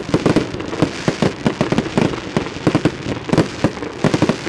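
Fireworks display in a dense barrage: bangs of launches and bursting shells come several a second, overlapping, over a continuous crackle.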